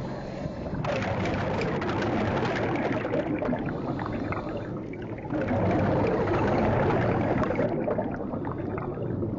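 Water gurgling and rushing in two long surges, the first starting about a second in and the second about five seconds in.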